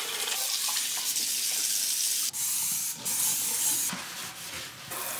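Water running from a kitchen faucet into a stainless steel sink as dishes are rinsed, a steady splashing hiss that drops out briefly twice around the middle.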